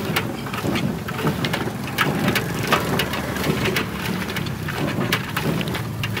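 Potatoes deep-frying in hot oil: a steady sizzle with irregular crackles and pops.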